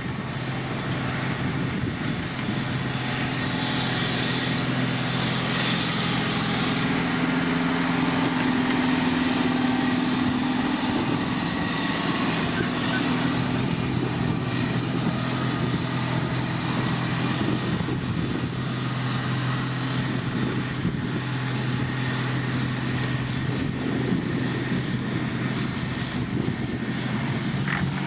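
Diesel engine of heavy road-building machinery running steadily under work, a constant low engine hum with a slight swell about a third of the way in.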